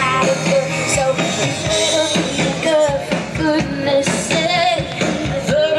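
Live band music with a singer, amplified over a PA: held sung notes that waver, over a steady band accompaniment.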